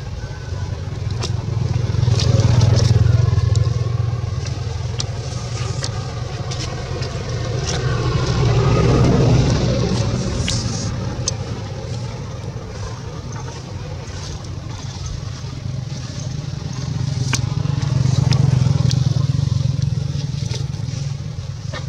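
Low rumble of motor vehicles passing, swelling three times as they go by, with faint scattered clicks.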